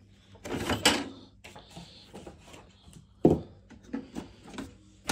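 Clicks and knocks from handling an HP Ink Tank 319 inkjet printer's plastic body as it is switched off, with one sharp knock a little after three seconds in, over a faint steady hum.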